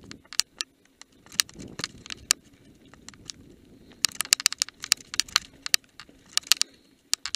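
Mountain bike rattling over a rocky, gravelly trail on a descent: irregular sharp clicks and knocks of the bike and its tyres on stones, coming thickest in a run from about four seconds in.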